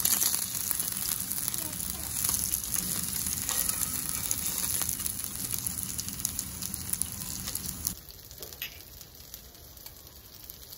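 Food sizzling on a barbecue grill, a steady hiss dotted with small crackles and pops. It cuts off suddenly about eight seconds in, leaving only a quiet background with a single click.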